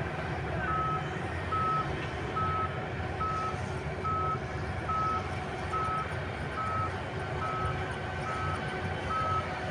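Heavy earthmoving machine's reversing alarm beeping steadily, one tone about once every 0.8 seconds, over the low rumble of its diesel engine: the machine is backing up.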